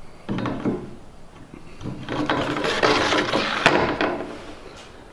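White PVC pipe guide being slid onto a boat trailer's guide post: a brief scrape, then from about two seconds in a longer scraping slide of plastic on the post, ending in a sharp knock.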